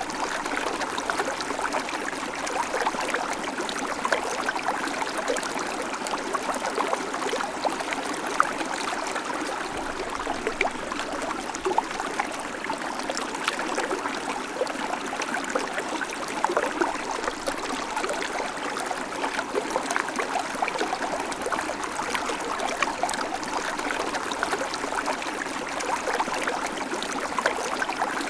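A babbling creek: shallow water running steadily over stones, a continuous splashing and gurgling with many small bright trickles.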